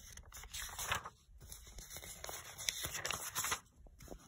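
Magazine pages being turned and handled: several papery swishes and rustles with small taps.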